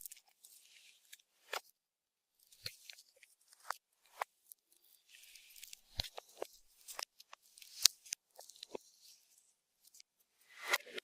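Slime being handled and mixed, giving scattered sticky clicks, small pops and short crackles, with a denser cluster of crackling near the end.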